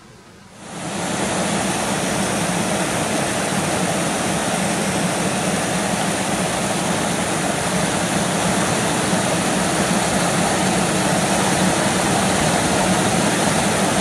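Small brook waterfalls cascading over rock ledges, the stream swollen with spring run-off: a loud, steady rushing of falling water that swells up suddenly about half a second in.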